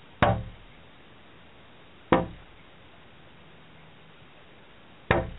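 Wild turkey tom pecking at a window pane: three sharp knocks on the glass, about two and then three seconds apart.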